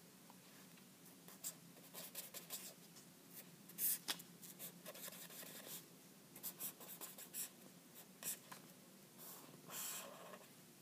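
Pen scratching on paper in short, irregular strokes as lines and winding coils are drawn, with a few louder strokes about four seconds in and near the end.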